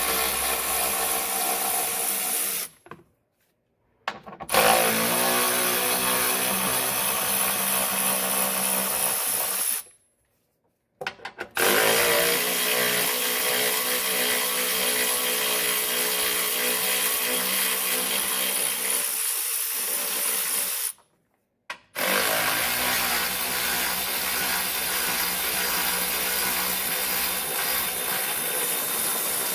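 Power tool motor running steadily in long stretches, backing out the 13 mm bolts that hold the coolant bottle, stopping briefly three times between bolts.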